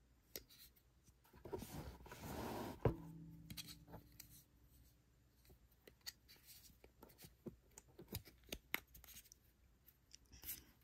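Hands handling small plastic camera parts: a rubbing scrape about a second and a half in, a sharp click near three seconds, then scattered light clicks and taps.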